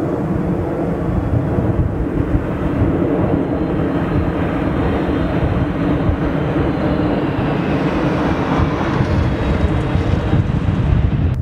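Boeing 747 cargo jet's four turbofan engines running as it lands and touches down: a steady deep rumble with a high whine slowly falling in pitch, the sound growing brighter and hissier about two-thirds of the way through.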